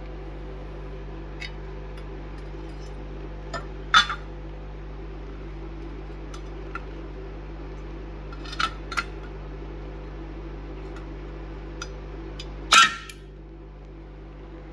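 Steady machine hum from a home-built CNC plasma cutting setup, with a handful of sharp metallic clinks: one about four seconds in, two close together around nine seconds, and the loudest near the end, after which the hum drops a little. No plasma arc is cutting.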